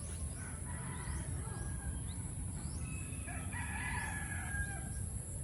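A rooster crowing, faint, over a steady low rumble.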